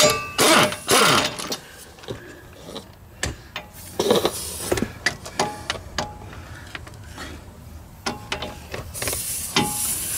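Pneumatic impact wrench spinning out the front brake caliper bracket bolts. There is a burst at the start with the tool's pitch falling, another about four seconds in, metal clicks and clanks of the bolts and tool in between, and a steady hiss near the end.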